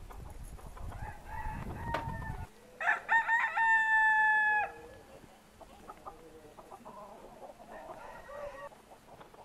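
A rooster crows once, about three seconds in: a few short notes, then a long held final note that lasts about a second. Soft clucking follows, and a low rumble before the crow stops just ahead of it.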